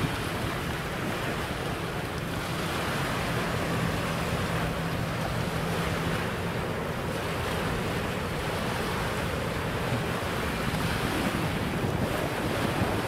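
Wind buffeting the microphone over water, an even rushing noise, with a faint low hum underneath that is strongest between about three and seven seconds in.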